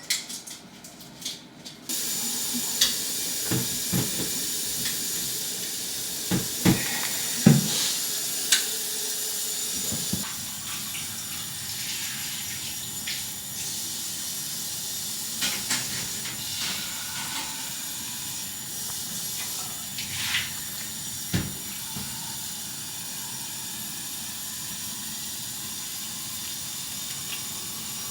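Water running steadily from a tap, hissing into a sink; it comes on suddenly about two seconds in, with a few knocks and clicks over it.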